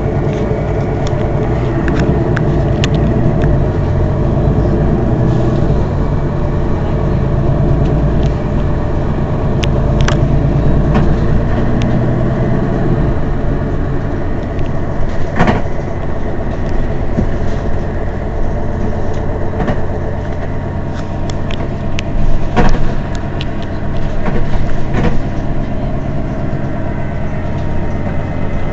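Mercedes-Benz Citaro city bus engine idling steadily while the bus stands still, with a few sharp knocks, the loudest about fifteen and twenty-two seconds in.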